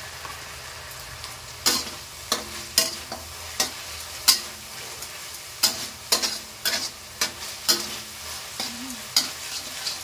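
Metal spatula scraping and clanking against a wok as a stir-fry is turned, over a low steady frying sizzle. The strokes begin a couple of seconds in and come irregularly.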